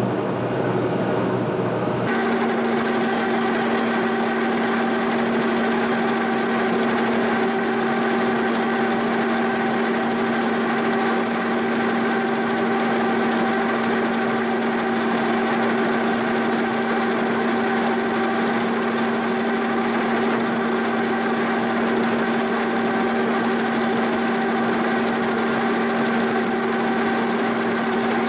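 Boring bar cutting a worn bore in a prehard 4140 steel backhoe boom on a mill, chattering. A steady pitched hum with overtones sets in about two seconds in and holds: the tool vibrating against the part, which rings like a tuning fork.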